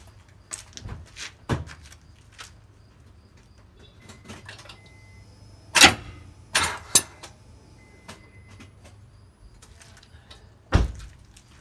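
Short, loud clunks as the starter is bumped on a Honda 3.5-litre V6 with a breaker bar on the crankshaft bolt braced against the lower control arm, the engine kicking the bar as the bolt breaks loose. There is one clunk about six seconds in, two quick ones right after, and one more near the end.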